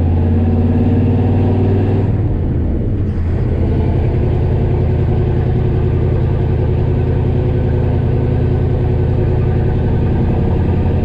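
International truck's engine running while driving, heard from inside the cab. Its note dips and shifts about two seconds in, then runs steady.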